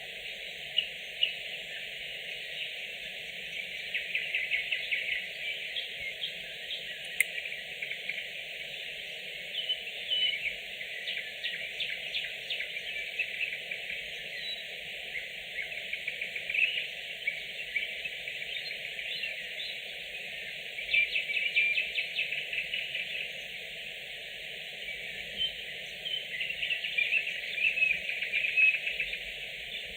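Nightingale song: rapid trills and clicking phrases in bursts of a few seconds, with quieter gaps between them.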